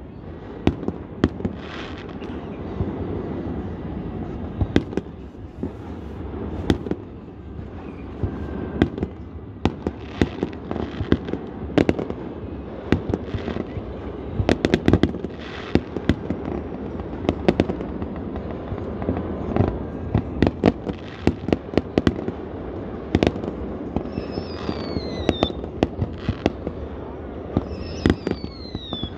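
Aerial fireworks display: a continuous run of sharp bangs and crackling shell bursts. Two falling whistles come near the end.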